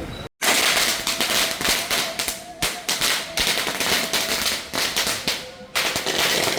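A string of firecrackers going off in a dense, rapid crackle, starting abruptly just after the opening. The crackle dips briefly a little over five seconds in, then resumes.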